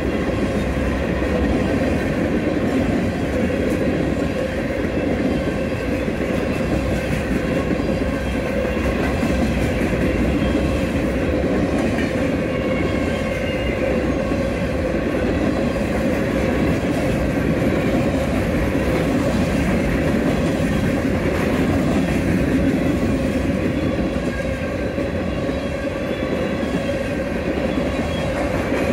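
Westbound freight train of empty grain cars rolling past: steady wheel-on-rail rumble and clatter with a steady ringing tone.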